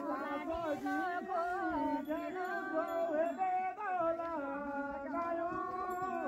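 A single voice singing a slow devotional folk song with long held, gently wavering notes.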